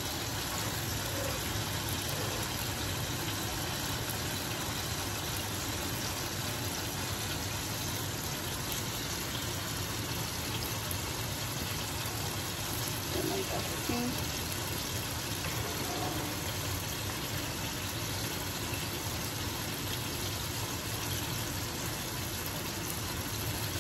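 Steady, even hiss of a stove's range-hood exhaust fan running.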